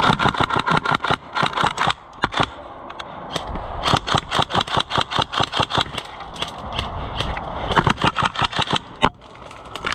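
Airsoft guns firing in rapid automatic bursts of sharp clicking shots, about ten a second, with short pauses between bursts.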